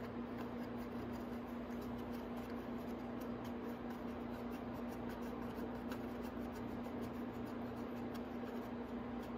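A steady hum with faint small clicks and scrapes of a bolt being turned in by hand into a plastic motorcycle side fairing.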